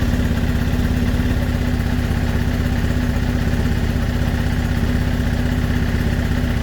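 Suzuki GSX-R1000 K8 inline-four engine idling steadily, carrying an unidentified noise the owner finds strange.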